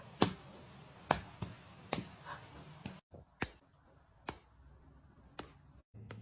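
Irregular sharp taps or clicks, about eight in all, spaced roughly half a second to a second apart.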